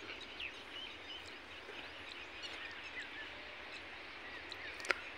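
Faint open-air field ambience with a few short, distant bird chirps, and a single sharp click near the end.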